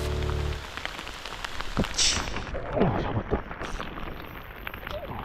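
Heavy rain falling steadily on the water and grass. A held low musical chord fades out in the first half-second, a short high hiss comes about two seconds in, and a few brief sounds fall in pitch around three seconds.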